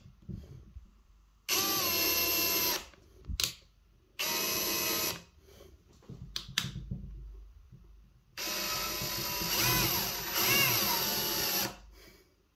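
Parkside Performance 20 V cordless drill driving a screw into a block of wood in three runs of motor whine: a short one about a second and a half in, another near four seconds, and a longer one of about three seconds near the end whose pitch rises and falls as the speed changes. A short click falls between the first two runs.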